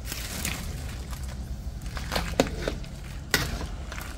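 A metal ladle clinking and knocking against a metal wok as cabbage is added to a simmering pork-rib broth: a handful of sharp clinks, the loudest about three seconds in, over a low steady rumble.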